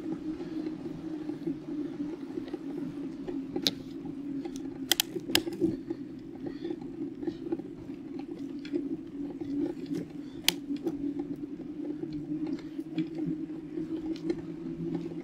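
Bicycle tyres rolling on the road, picked up by a handlebar-mounted camera microphone as a steady hum, with a few sharp clicks about four seconds in, around five seconds and near ten and a half seconds.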